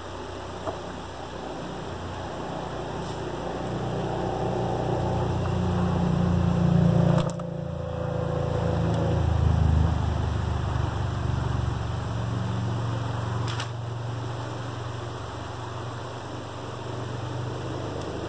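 Creek water running through a beaver dam that is being pulled apart by hand, under a low, fluctuating rumble that swells to its loudest about seven seconds in. A few sharp clicks stand out.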